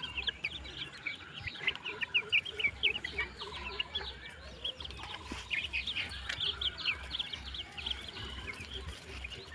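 A brood of Vanaraja chicks peeping, many short high chirps overlapping continuously, over a low pulsing hum.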